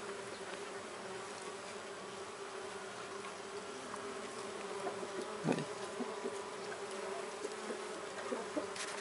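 Steady buzzing of many mandaçaia stingless bees (Melipona quadrifasciata) around their opened nest. About five and a half seconds in, a brief louder buzz drops in pitch, and light clicks of wax comb being handled come near the end.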